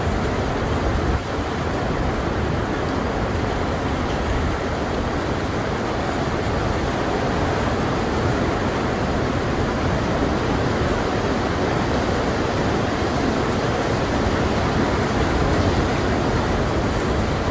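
Heavy thunderstorm rain pouring down steadily, mixed with some small hail up to about 1 cm.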